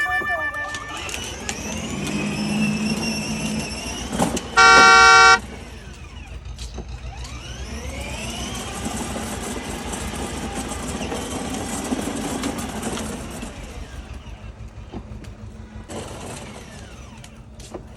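A single loud, steady horn toot lasting under a second, about five seconds in, over a continuous low vehicle rumble.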